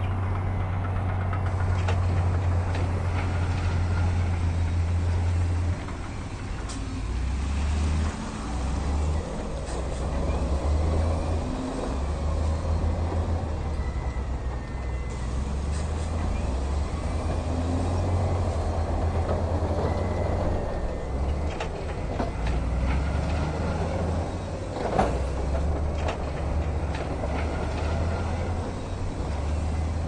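Heavy diesel engines of dump trucks and a bulldozer at work, a low engine drone that rises and falls as the machines load and ease off. A single sharp knock about 25 seconds in.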